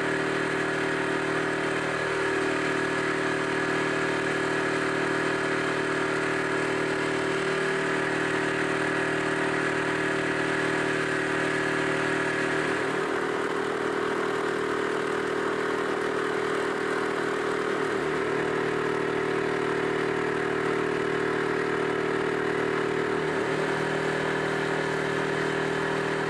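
A small boat's engine running at a steady cruising speed, with a constant pitch and an even rush of noise over it.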